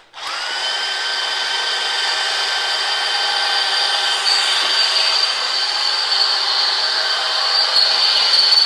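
Cordless DeWalt drill running steadily under load, its bit cutting into the steel frame rail of a 1972 Chevrolet C10 to bore a bolt hole. A high squeal over the grinding strengthens about halfway through and again near the end.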